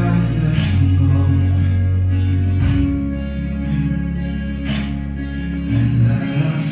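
Background music with plucked guitar and a steady bass line.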